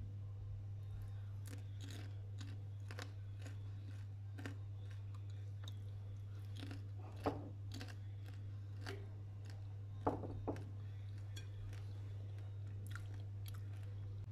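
Crisp caramel-coated popcorn crunching in scattered sharp crackles, with two louder crunches about seven and ten seconds in, over a steady low hum.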